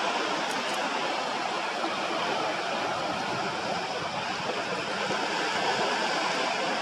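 Steady rushing wash of sea surf on a sandy beach.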